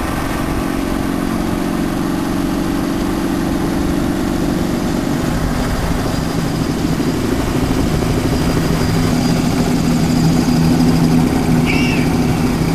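A motor vehicle's engine running steadily while driving, with road and wind noise; its pitch drops slightly about five seconds in.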